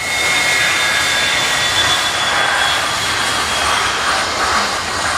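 Jet engines of a Spirit Airlines airliner running on the runway: a steady rush of noise with a high whine that fades over the first few seconds.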